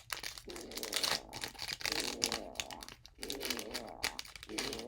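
A Pokémon TCG booster pack's foil wrapper crinkling and tearing as it is opened by hand: a dense run of crackles and rustles.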